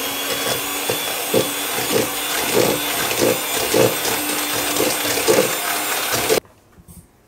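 Russell Hobbs electric hand mixer running steadily, its beaters creaming butter, shortening and sugar in a plastic bowl, with a series of knocks about every half second. The motor cuts off suddenly near the end.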